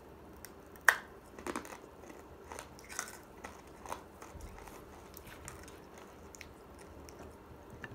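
A person biting and chewing a striped candy stick, with one sharp bite about a second in and a few softer chewing clicks after.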